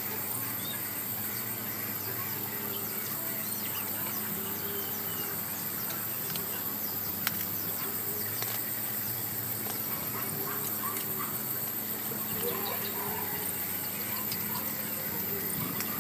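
Steady high chirring of insects such as crickets, with short bird calls now and then.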